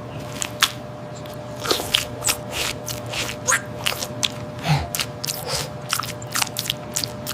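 Someone biting and chewing food with a crunch, many short irregular crunches, over a steady low hum.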